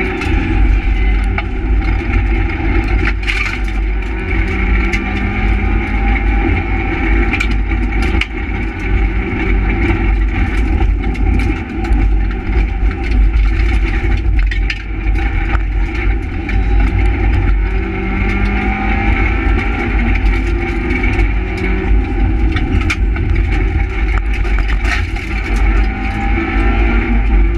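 Renault Twingo R1 rally car's four-cylinder engine heard from inside the cabin, revving hard, its pitch rising and falling again and again, over a heavy rumble of road and wind noise with scattered knocks.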